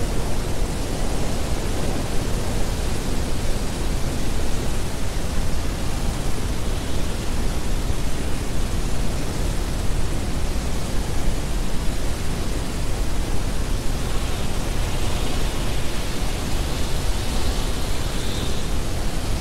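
Steady, dense rushing noise that does not change in level, heaviest in the low end, with a faint high tone coming through near the end.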